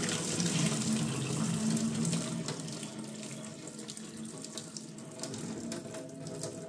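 Pasta cooking water pouring from a pot through a clip-on silicone strainer and splashing into a stainless steel sink. The pour is heaviest for the first two seconds or so, then eases to a thinner stream.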